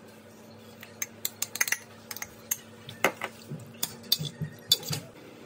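A metal utensil stirring chunks of beef and konnyaku in a stainless steel saucepan, clinking and scraping against the pot in a run of irregular sharp clicks.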